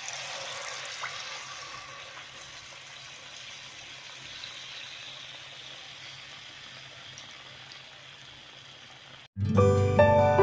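Battered fish fillets frying in hot oil: a steady sizzle that slowly fades and stops abruptly, followed by soft background music.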